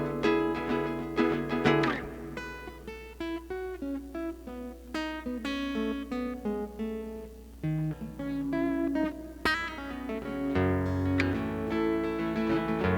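Amplified acoustic guitar played with a pick in an instrumental break: single picked notes and chords, with deeper bass notes coming in about two-thirds of the way through.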